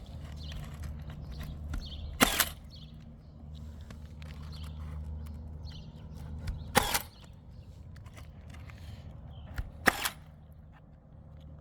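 Pneumatic roofing nail gun firing three times, a few seconds apart, each a sharp crack driving a nail into an asphalt shingle.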